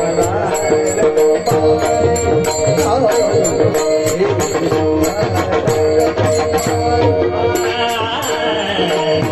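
Marathi devotional kirtan music: a steady held drone, hand drum, and small cymbals striking about twice a second, with a singer's voice gliding through the melody.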